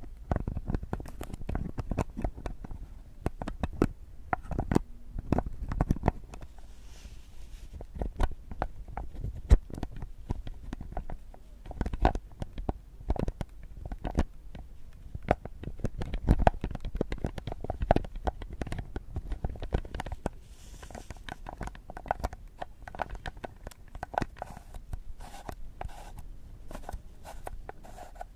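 Close-miked ASMR trigger sounds: a dense, irregular run of small taps, clicks and scratches with muffled low thumps, the object being handled unknown.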